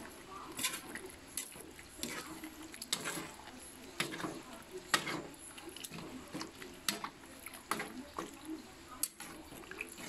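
Metal spoon stirring thick duck kaldereta sauce in a metal wok: irregular clinks and scrapes of the spoon against the pan, several a second at times, over wet squelching of the sauce.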